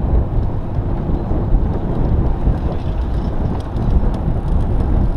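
Wind buffeting the microphone of a camera riding on a moving bicycle, a steady low rumble mixed with tyre noise on asphalt.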